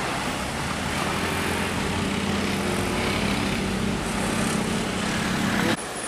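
Heavy road traffic passing: the engines of a bus and a truck run as a steady drone with a low hum, over tyre and road noise. The sound cuts off abruptly near the end.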